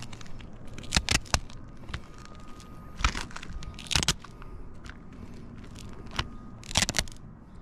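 Scattered scrapes and crackles of asphalt roof shingles being stepped on and handled: three quick ones about a second in, single ones around three and four seconds, and a short cluster near the end.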